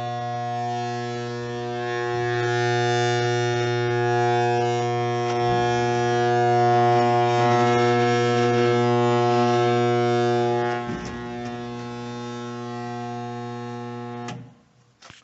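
HVAC blower fan motor humming steadily with an electrical buzz but not starting: the stalled-motor hum of a blower that won't run. The hum cuts off abruptly near the end, followed by a couple of faint clicks.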